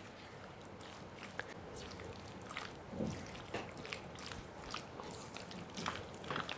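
Silicone spatula stirring raw chicken pieces through a thick, wet spice-and-egg coating in a stainless steel bowl: faint, irregular squishing and light scraping, a little louder about three and six seconds in.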